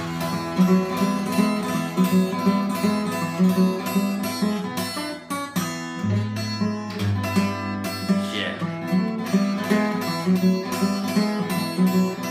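Steel-string acoustic guitar fingerpicked in a ragtime blues style: a steady thumbed bass, about two notes a second, under a picked melody, with a short sliding note about eight seconds in.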